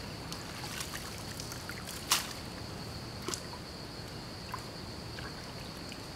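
Shallow stream water splashing and trickling as hands reach in and rummage among submerged branches and twigs, with scattered small cracks and one sharper click about two seconds in. A steady high-pitched hum sits underneath.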